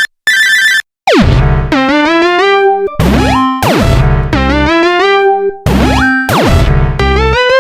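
Electronic synthesizer music: a loud phrase of sliding and stepping notes over a low buzzy bass, repeated about three times. It follows a short steady warbling tone and two brief breaks in the first second.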